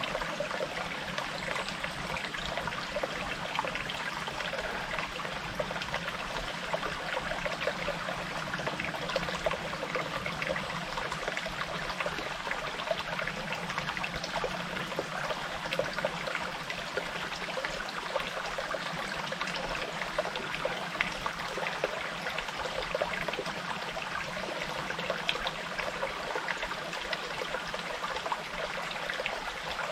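Small forest stream trickling and babbling steadily.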